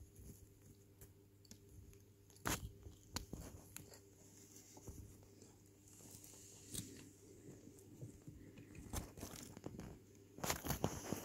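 Tortoise biting and tearing dandelion leaves, faint crisp snaps of leaf: a few separate bites, then a quick run of them near the end.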